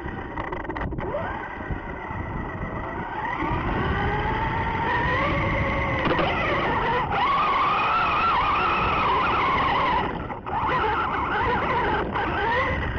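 Traxxas Rustler RC truck's electric motor and drivetrain whining, rising and falling in pitch with the throttle, as it drives through standing water with its tyres splashing. The whine drops away briefly about ten seconds in, then picks up again.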